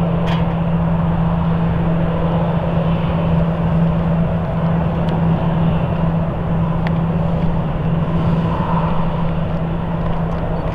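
Airbus ACJ318's twin jet engines at taxi idle, a steady low hum over an even rushing noise.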